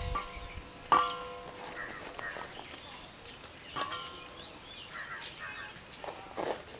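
Stainless steel bowl knocked once about a second in and again more lightly near four seconds, each time ringing briefly. Between the knocks, soft rustling of green chillies being handled and pressed into a clay pot.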